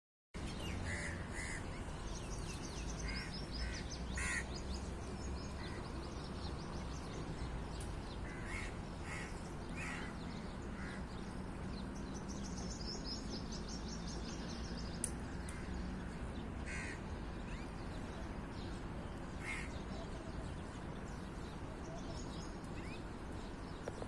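Short harsh bird calls, often two or three close together, scattered through the stretch over a steady low rumble. A fast, high-pitched trill runs for a couple of seconds twice, and there is one sharp click about fifteen seconds in.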